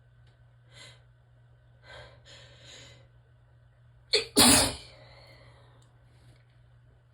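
A person sneezing: a few faint breaths, then a short sharp catch and one loud sneeze about four seconds in.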